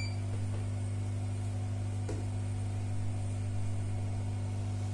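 Hot-air rework gun running with a steady low hum, and a faint click about two seconds in.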